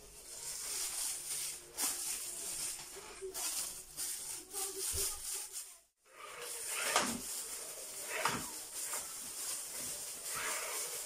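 Thin plastic disposable gloves crinkling and rustling as they are handled and pulled onto the hands. The sound cuts out briefly about halfway through.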